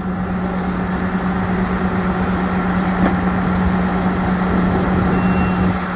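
Fire engine's diesel engine running steadily with a constant low hum, over the wide rushing noise of a large fire. A brief faint high beep sounds near the end.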